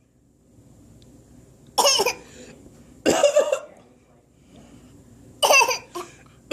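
A sick boy coughing: three single coughs spaced a second or two apart. He has been ill for three days.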